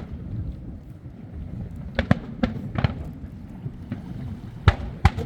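Fireworks bursting in a scattered run of sharp bangs, several about two to three seconds in and more near the end, over a steady low rumble.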